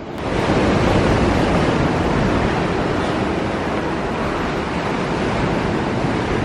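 Steady rush of surf on the shore, mixed with wind on the microphone, swelling up in the first second and then holding steady.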